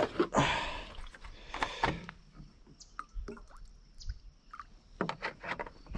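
Water poured from a plastic gallon jug into a small metal pot, splashing and gurgling for about two seconds, then a few light clicks and knocks.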